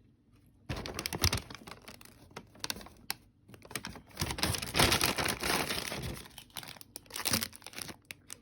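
Crinkling and crumpling of wrapping, with tearing, in irregular bursts that are loudest in the middle.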